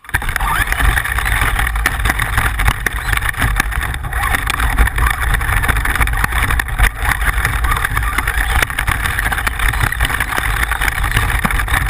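Radio-controlled car driving off-road: its motor runs steadily under a continuous gritty noise and a low rumble, with many small clicks and knocks.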